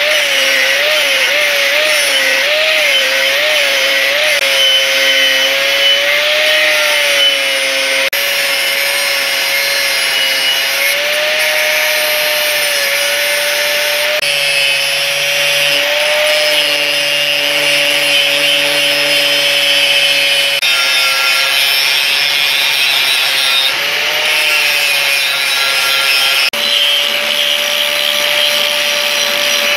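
Angle grinder with a thin cut-off disc cutting through the steel of a circular saw blade: a steady high motor whine that dips and wavers as the disc is loaded in the cut, over a harsh grinding hiss.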